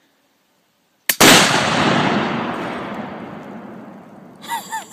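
A .22 exploding target detonating as a suppressed .22 rifle hits it: a short crack, then at once a loud boom that rolls and echoes away over about three seconds.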